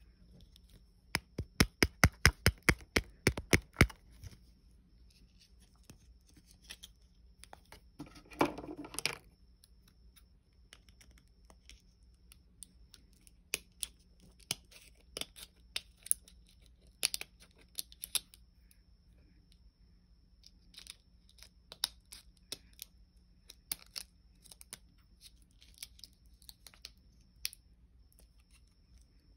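A fast run of sharp clicks or taps in the first few seconds, a short crackling rustle about eight seconds in, then scattered single clicks. A faint, steady high-pitched whine runs underneath.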